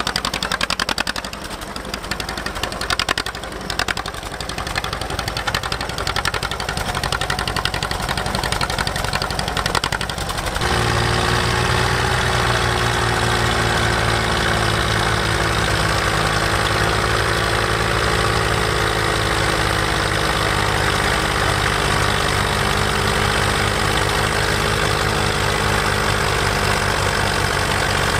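Vintage John Deere two-cylinder tractor engine running with a steady beat of separate pulses. About ten seconds in the sound changes abruptly to the louder, even running of tractor engines idling on a pulling track.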